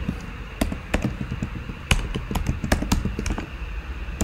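Typing on a computer keyboard: separate keystrokes at an uneven pace of about three a second, entering a command in a terminal.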